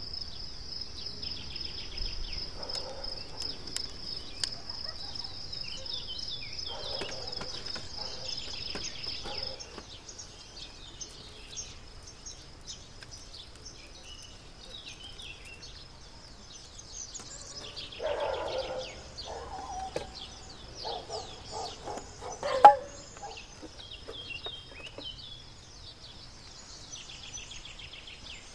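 Outdoor rural ambience: small birds chirping over a steady high-pitched tone that is stronger for the first nine or so seconds, then fainter. Some lower sounds around 18 to 23 seconds in end in one sharp knock.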